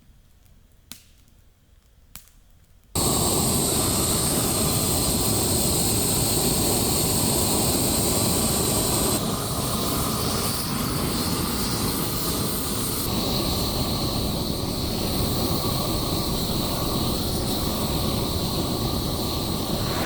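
A power saw running steadily with a high whine, starting abruptly about three seconds in after a few faint clicks.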